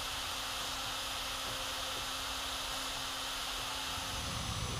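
Small CNC mill spindle running at high speed while milling holes in a copper-clad circuit board: a steady whine with hiss.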